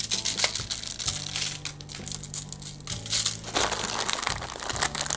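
Plastic bag crinkling in gloved hands while brown sugar is shaken and patted onto a ham, an irregular rustling that comes and goes.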